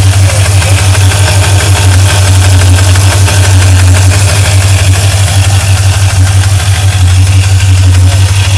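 Engine idling steadily with a fast, even ticking running through it.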